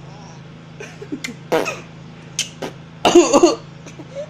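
An adult coughing in short bursts, with a baby's laughter in reply; the loudest burst, cough and laugh together, comes about three seconds in.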